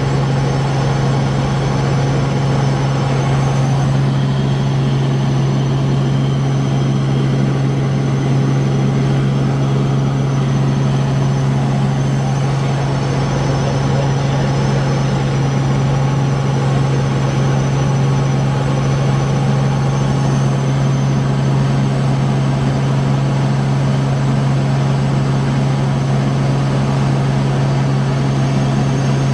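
Helicopter in flight heard from inside the cabin: a steady engine and rotor drone with a strong low hum and several steady higher tones over a constant rush.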